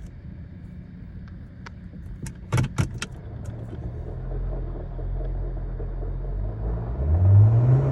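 2015 Nissan Sentra with its engine running as a steady low hum. About two and a half seconds in there is a quick run of four or five sharp clicks. Near the end a louder low hum rises and then falls in pitch.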